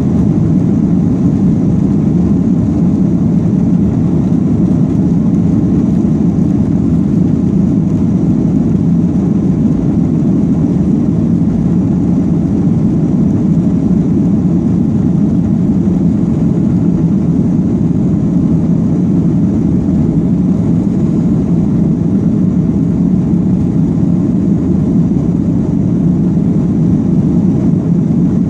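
Boeing 737-800 cabin noise while the jet rolls along the runway: a steady, loud low rumble of its CFM56 engines and wheels, heard from inside the cabin.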